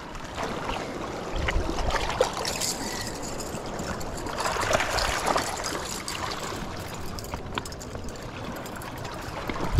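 River water lapping and trickling against shoreline rocks, with scattered small clicks and a couple of low bumps.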